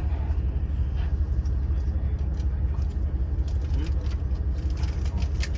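Steady low rumble of the Yufuin no Mori diesel railcar idling at a standstill, heard inside the passenger cabin, with a few faint ticks.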